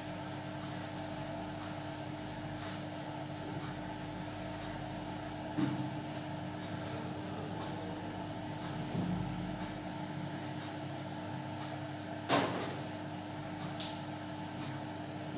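Steady background hum with one constant tone, broken by two short, sharp knocks, about five and a half and twelve seconds in, and a couple of fainter ones.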